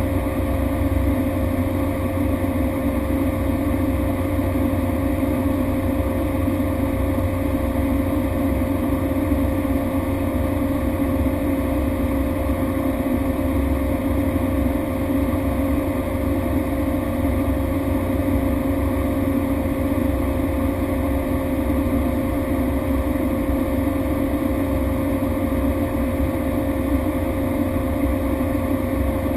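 Cessna Grand Caravan's single Pratt & Whitney PT6A turboprop engine and propeller running steadily: a constant drone with an unchanging tone over it.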